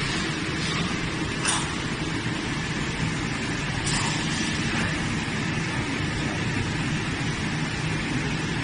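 TPU pipe-welding and forming machine running with a steady mechanical hum, with two short hissing bursts about a second and a half and four seconds in, like air released from its pneumatic press.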